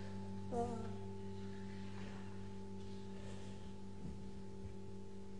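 Quiet stage music: a steady drone holding one note in several octaves. A short voice-like sound comes about half a second in.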